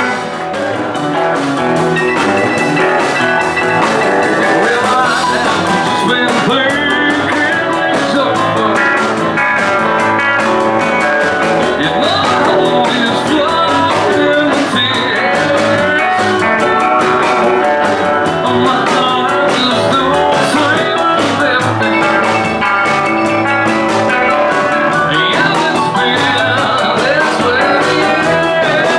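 Live rockabilly/honky-tonk band playing: electric guitar, bass and drums, with singing.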